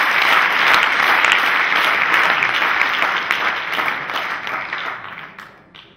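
Audience applauding, a dense clapping that fades away near the end.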